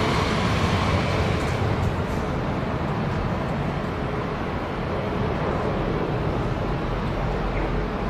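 Airbus A330 jet engines on landing approach: a steady rumble, with a faint whine that fades over the first two seconds.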